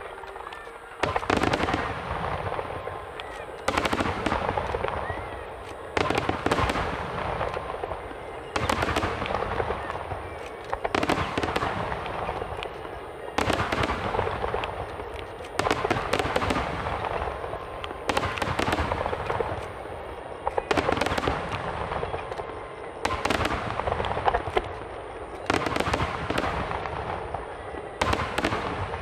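Aerial fireworks going off in volleys about every two and a half seconds, each a rapid cluster of sharp bangs that fades away before the next.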